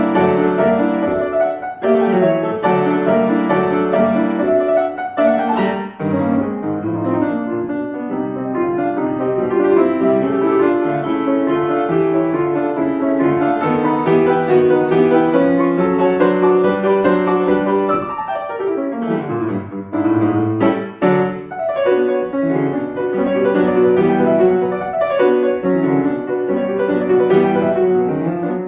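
Acoustic piano playing a classical piece with continuous, overlapping notes, thinning briefly to a few low notes about two-thirds of the way through.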